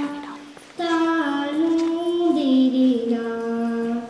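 A young girl singing raga Yaman in Hindustani classical style, with no accompaniment heard. One phrase ends at the start, then after a breath a long phrase of held notes starts just under a second in, steps down in pitch and settles on a low sustained note.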